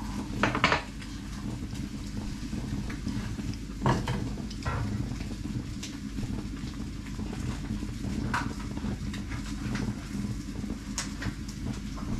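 Occasional light clinks and knocks of a plate and cutlery being handled, a few seconds apart, over a steady low hum.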